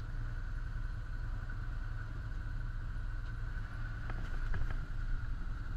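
Side-by-side UTV engine idling steadily: a low rumble with a thin steady whine above it. A few faint light clicks come about four seconds in.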